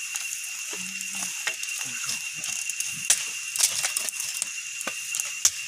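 Dry grass and twigs burning, with irregular crackling and sharp snaps, over a steady high-pitched tone. A brief low voice hum about a second in.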